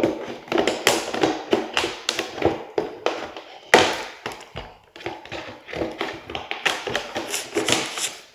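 Scissors snipping and jabbing at a cardboard toy box: an irregular run of short clicks and taps, several a second, with one louder sharp crack near the middle.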